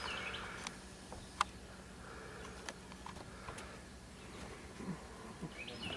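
Quiet outdoor background with a few faint, sharp clicks and taps spread through it.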